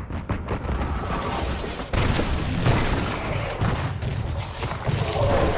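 Artillery bombardment and gunfire: a continuous din of booms and shots, growing louder about two seconds in.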